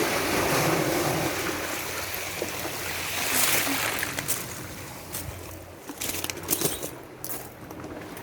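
Sea waves washing onto the shore at high tide: a broad hiss that swells twice and then fades. Scattered clicks come near the end.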